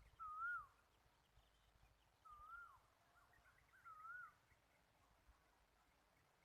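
A bird whistling a short up-and-down note three times, about one and a half to two seconds apart, with fainter chirps in between.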